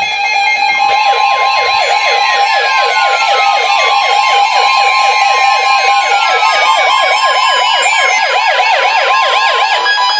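Weather radio warning alarms sounding together for a new alert: a steady high alert tone near 1 kHz with a fast warbling siren over it, several warbles a second, and slower falling sweeps. It starts about a second in and cuts off near the end.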